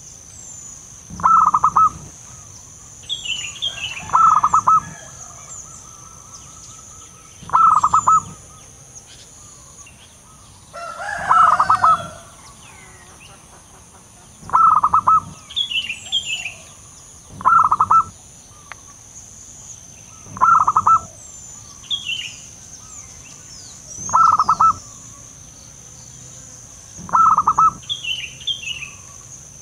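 Zebra dove cooing: a short, rapid stuttering phrase repeated about every three seconds, nine times. Faint small-bird chirps come between the phrases.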